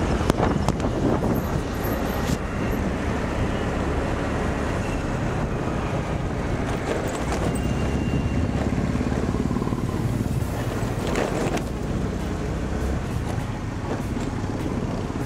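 Steady traffic and road noise from riding a scooter, with a low rumble of wind on the microphone. A brief click comes just after the start, and a vehicle passes about eleven seconds in.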